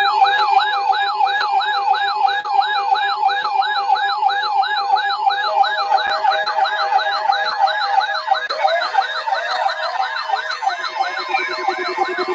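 Emergency alert test tones: a siren-like tone warbling up and down about three times a second over steady alert tones, with the steady tones changing partway through.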